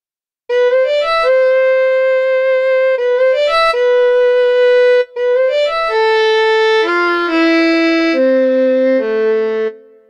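Sampled violin from UVI World Suite 2's 'Balkanish Violin' preset playing a solo phrase. It starts about half a second in with two quick upward runs, each into a long held note, then steps down through a melody of lower notes and ends with a short reverb tail.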